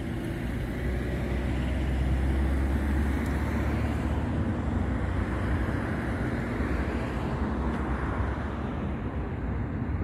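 Steady outdoor street noise: a low rumble of road traffic under a general hiss, the rumble easing a little after about seven seconds.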